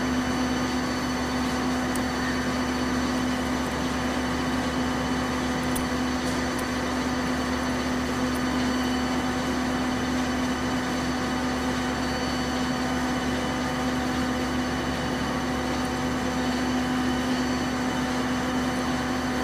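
Oakes stainless steel slurry mixer running on its electric motor drive, a steady hum. It has one strong low tone and fainter, higher steady whines, with no change in speed.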